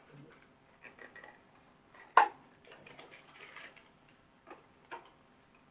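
Small clicks and taps of earphone packaging and parts being handled, with one sharper click about two seconds in, two lighter ones near the end, and light rustling in between.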